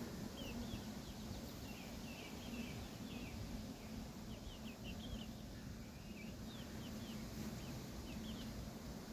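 Honeybees buzzing around an open hive: a steady low hum. Small birds chirp over it many times, and wind rumbles on the microphone.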